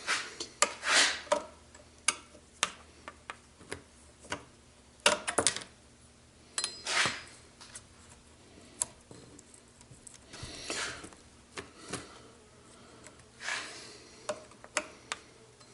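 Scattered metal clicks, clinks and short scrapes from hand work on a chainsaw's bar and chain while it is reassembled and tightened after a chain replacement.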